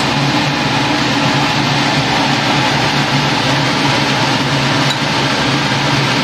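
A fan running with a steady, even hum and hiss.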